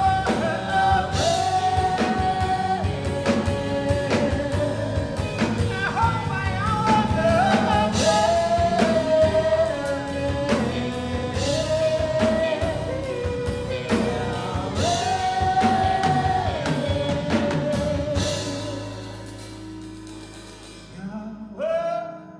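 Live band and vocal group performing a song: several singers in harmony over keyboard, guitars and a beat. About eighteen seconds in the band drops away and the music dies down to a quiet held sound, with a short sung phrase near the end.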